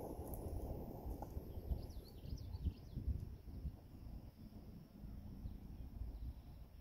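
Faint outdoor ambience: a low, uneven rumble with a few faint bird chirps about two to three seconds in. A thin high whine from the RC car as it drives away fades out within the first two seconds.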